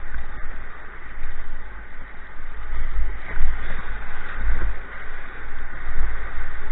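Rushing, choppy river water of a whitewater riffle around a kayak's hull, heard close up, with uneven low rumbling from wind buffeting the camera microphone.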